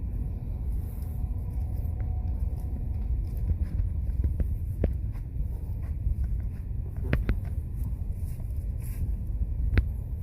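Steady low rumble, with a few sharp clicks or knocks scattered through it, two close together about seven seconds in and a last one near the end.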